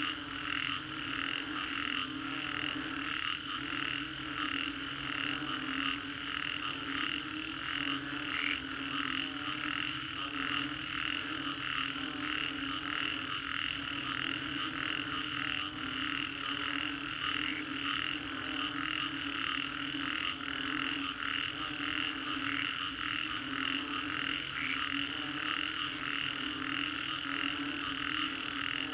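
A dense chorus of many frogs calling after a storm. Fast, overlapping higher-pitched calls sit over a lower, steady croaking, and the chorus keeps an even level throughout.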